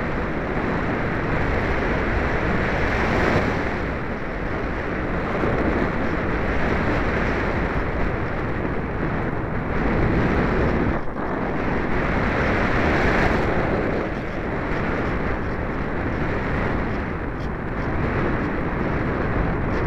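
Wind rushing over the microphone of a small keychain camera riding on a ParkZone Radian Pro RC glider in flight: a loud, steady rushing noise that swells and eases a little.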